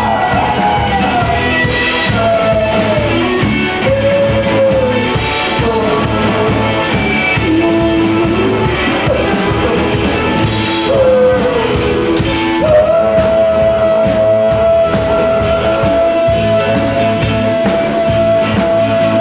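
Rock music from a small band: a sung melody over electric guitar and drum kit with cymbals. About two-thirds of the way through, a single high note comes in and is held steady.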